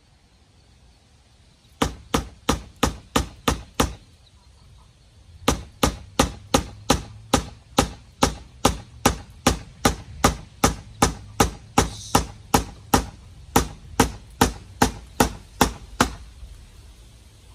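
Hammer striking, nailing short wooden blocks onto an old wooden window frame: a quick run of about seven blows, a pause, then a long steady series of about three blows a second that stops shortly before the end.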